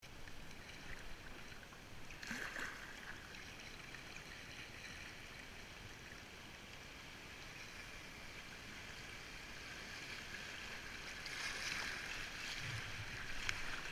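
Flowing river water rushing past a kayak, with paddle splashes. It gets louder about eleven seconds in as the kayak runs into a stretch of choppy, fast water.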